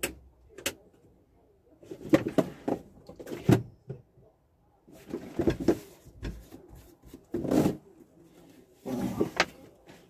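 Scattered clicks, knocks and short rustling bursts of handling in a small seaplane's cockpit, with the engine stopped.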